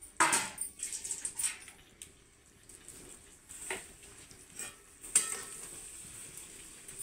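Steel utensils clinking and knocking as a steel plate is handled and set as a lid over a steel kadhai of chicken curry, with a handful of separate clinks and the loudest about five seconds in. After it, a steady soft hiss comes from the curry sizzling in the pan.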